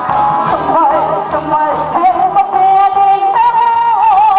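A woman sings a song into a microphone over backing music with a steady beat. Her short phrases give way, about three and a half seconds in, to a long held note with wide vibrato.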